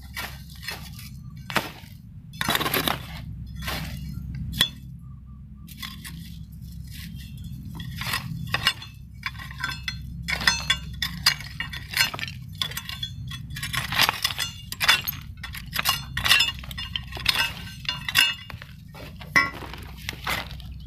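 Loose stones and broken concrete and tile rubble clinking and scraping as the ground around a small shrub's roots is dug through. The clinks are sparse at first, then come thick and fast from about six seconds in.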